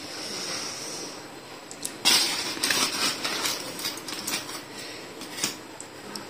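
Aluminium foil crinkling and rustling as it is handled, with light clicks of a metal spoon against a plate; the loudest crinkle comes about two seconds in.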